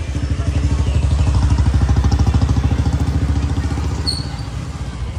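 A motor vehicle's engine running close by with a fast, low, even beat. It grows louder over the first second or two, then slowly fades.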